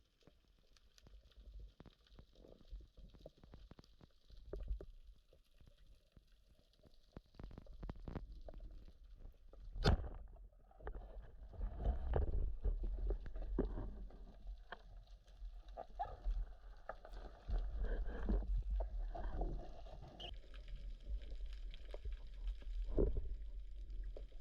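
Muffled underwater sound picked up through a camera housing: low, irregular rumbling of water movement with scattered clicks, and one sharp knock about ten seconds in, followed by louder stirring.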